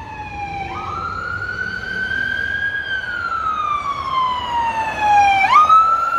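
Police car siren wailing as the car drives by, its pitch gliding slowly up and down and jumping back up quickly near the end, growing louder as it comes close.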